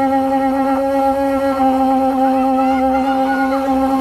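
Conch shell (shankha) blown in one long, steady, unbroken note.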